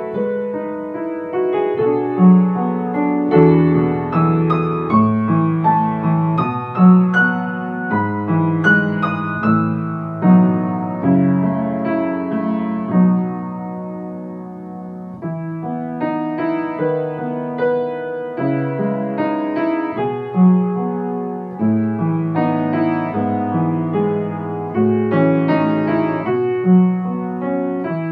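Calm ambient piano music: notes and chords struck and left to ring, with a softer, thinner stretch about halfway through.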